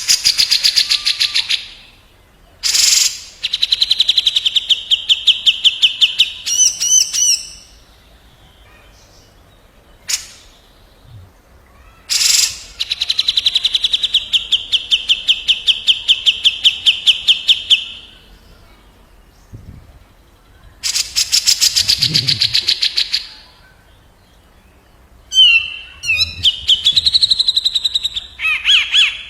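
Cucak jenggot (grey-cheeked bulbul) and a kapas tembak bulbul calling back and forth in loud bursts of fast, rattling trills. The trills have about ten notes a second and last a second to several seconds each, with short pauses between.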